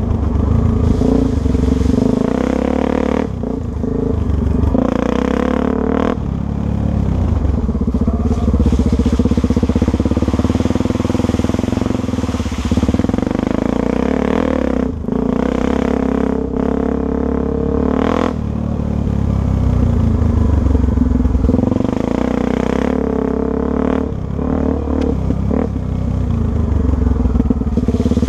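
Trail motorcycle engine running under way, the throttle repeatedly opened and eased off so the engine note rises and falls, with short dips a few times.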